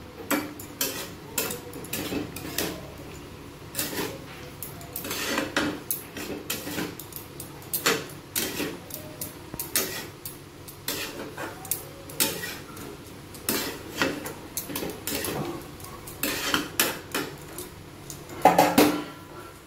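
Metal spatula stirring diced bottle gourd in a metal kadai, with irregular clinks and scrapes against the pan. A louder clatter comes near the end.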